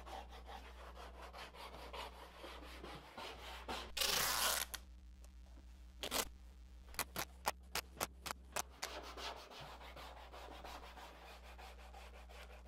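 Plastic squeegee rubbed back and forth along masking tape on the wood hull, burnishing the tape edge down so that stain cannot bleed under it. About four seconds in there is a brief louder rasp, and a little later a run of sharp clicks.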